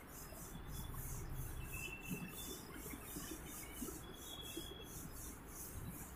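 Faint rubbing of a duster wiping a whiteboard clean.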